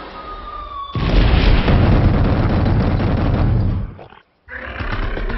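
A giant bear-like creature roaring twice. The first roar is loud and deep, starts suddenly about a second in and lasts nearly three seconds. After a brief break comes a second roar near the end.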